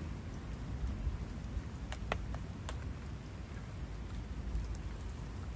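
Wood campfire crackling: scattered sharp pops and ticks, the loudest about two seconds in, over a low steady rumble.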